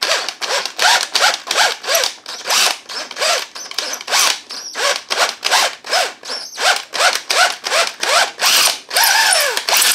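DeWalt cordless drill with an 11/32-inch bit boring into an engine's aluminium crankcase, the hole being opened up for a pipe-thread tap. The trigger is pulsed about three times a second, so the motor whines up and down in short bursts.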